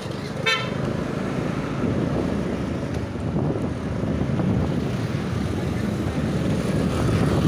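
Scooter riding along a road, its small engine running under steady wind noise on the microphone.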